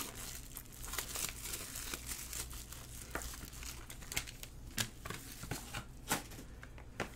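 Foil trading-card pack wrappers crinkling as they are handled and opened: a run of irregular crackles with a few sharper snaps.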